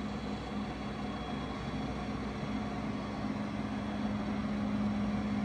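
Steady machine hum with a strong low tone, swelling slightly near the end.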